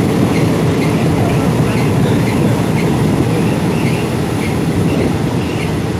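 Passenger train carriage running along the track: a steady, loud rumble of wheels on the rails, with faint high squeaks recurring through it.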